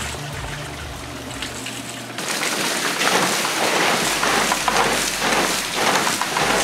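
Background music at first. About two seconds in, it gives way to water pouring from a chute onto a wooden waterwheel and splashing off it in a loud, steady rush.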